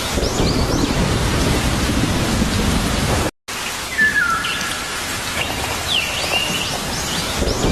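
Steady rain with thunder rumbling low underneath and birds chirping over it. The sound cuts out completely for a moment about a third of the way in, then rain and birdsong resume, with the thunder rumble building again near the end.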